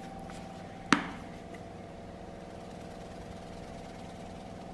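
An Old Bay seasoning tin shaken over a small glass dish, with one sharp knock about a second in, over a steady hum.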